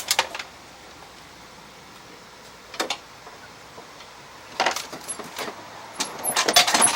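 Small metal parts clinking and rattling in short bursts, shaken and sifted by hand while searching for a tiny carburetor needle, with the busiest rattling near the end.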